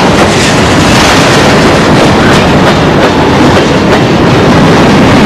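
Moving train running loud and steady: a continuous rumble and rattle with the clatter of wheels on the rails.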